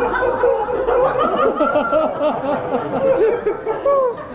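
Audience laughing and chattering, many voices overlapping at once.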